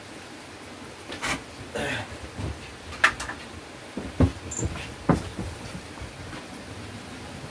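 Scattered clinks and knocks from an aluminium pot and lid being set on a clay wood-fired stove and from footsteps on a plank floor, the sharpest clink about three seconds in. A steady hiss runs underneath.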